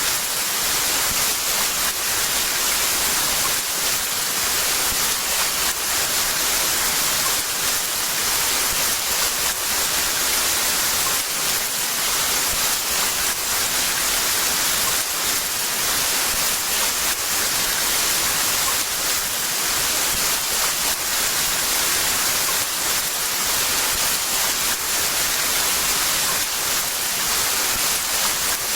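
Heavy rain falling in a steady, dense hiss, with no thunder.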